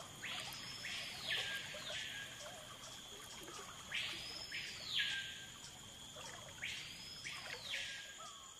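Natural wetland ambience: a wild animal call sweeping up and back down in pitch, about a second long and repeating every few seconds, over a steady faint high-pitched hum.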